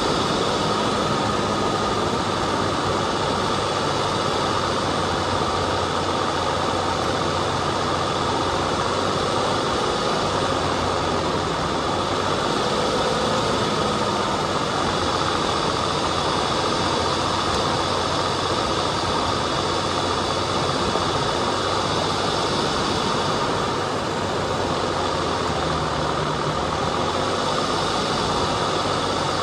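Off-road vehicle's engine running steadily as it climbs a dirt trail, with a constant high whine over the engine and trail noise.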